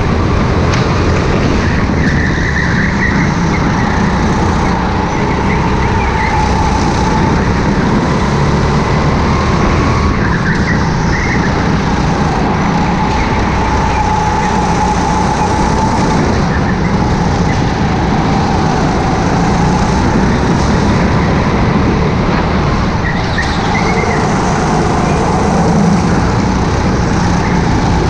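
Racing kart's engine running hard on track, heard onboard, its pitch rising and falling with speed through the corners over a loud, steady noise of wind and vibration.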